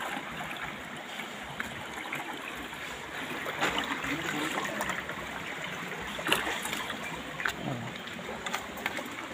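Shallow stream water trickling and running among boulders, as a steady wash of sound, with a few sharp clicks about a third of the way in and again later.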